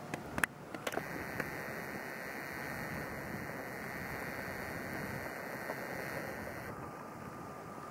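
Steady hiss of outdoor ambience, with a few light clicks in the first second and a half. Near the end the hiss changes and a faint steady tone comes in.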